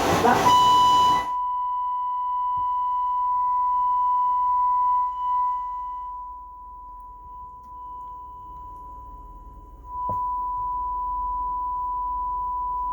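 Steady sine-wave test tone, as used to bench-test a repaired stereo receiver. It starts just after the demo audio cuts off, grows quieter for a few seconds in the middle, and returns to full level after a click.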